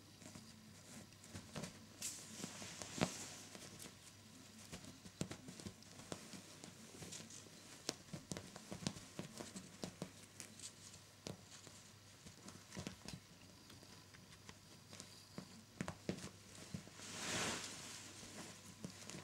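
Two Turkish Angora kittens playing on a quilted bedspread: soft, scattered taps and scuffs of paws on fabric with the rustle of a ribbon wand toy. A louder rustling swish comes near the end.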